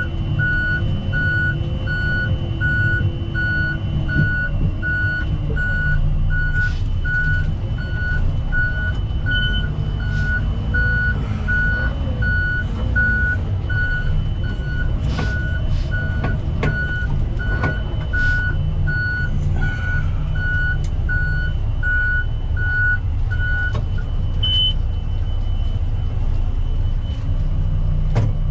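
Backhoe's reverse alarm beeping steadily, about one beep every 0.6 s, over its diesel engine running. The beeping stops about 24 seconds in while the engine keeps running.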